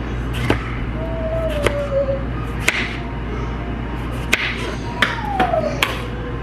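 Kitchen knife slicing a tomato on a plastic cutting board: about seven sharp taps as the blade meets the board, spread unevenly, over a steady low hum. A faint tone slides downward twice in the background.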